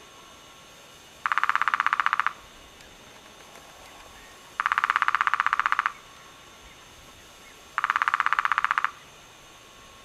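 Hairy woodpecker drumming: three even, rapid rolls of about a second each, a few seconds apart.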